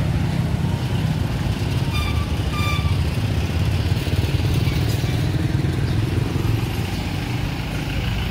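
Town street traffic, motor vehicles running past with a steady low rumble. Two short high chirps come about two seconds in.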